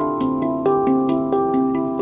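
Handpan being played: a quick run of struck notes, several a second, each ringing on beneath the next.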